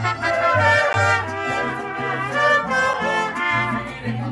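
Mariachi band playing, trumpets carrying the melody over strummed guitars and a low bass line.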